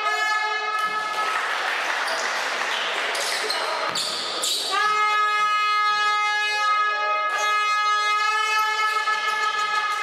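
A long, steady horn-like tone sounds in the hall and is held for several seconds. About a second in it breaks off for a few seconds of noisy hall sound with a basketball bouncing on the court, then resumes and holds steady.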